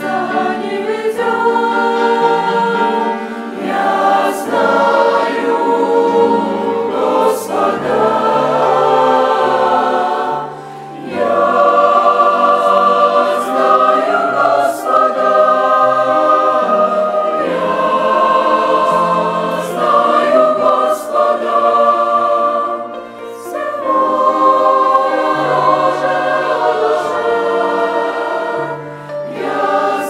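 Mixed church choir of men's and women's voices singing a Russian hymn in parts, in phrases with short breaks between them.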